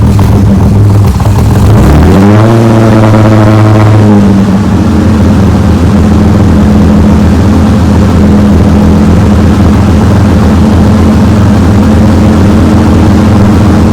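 Loud 1961 Austin-Healey 3000 2.9-litre straight-six running just after a cold start on choke. About two seconds in, the throttle is blipped: the revs rise, hold for about two seconds, then settle back to a steady fast idle.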